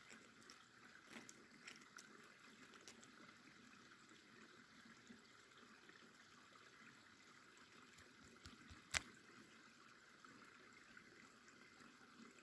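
Near silence: a faint steady background hiss with a few light clicks, and one sharp click about nine seconds in.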